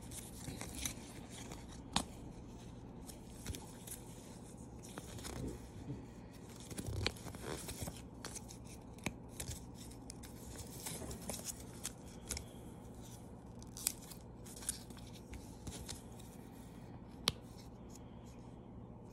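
Folded paper leaflet from a gacha capsule being unfolded and handled, rustling and crinkling, with sharp clicks scattered throughout.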